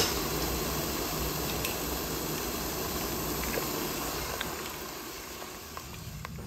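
A pot of water at a rolling boil with silkworm pupae in it: a steady bubbling hiss that grows a little quieter near the end.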